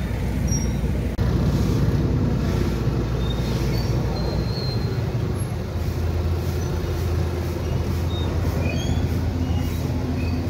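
Engines running steadily amid traffic noise, with a low steady engine hum from about four seconds in.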